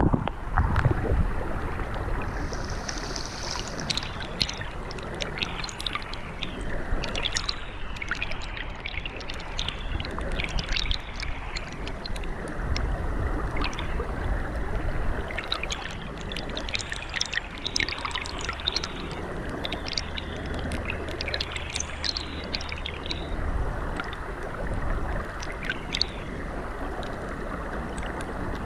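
Shallow stream water rushing over gravel, heard through a GoPro's waterproof housing at and under the surface: a steady muffled rumble with scattered crackles and ticks throughout.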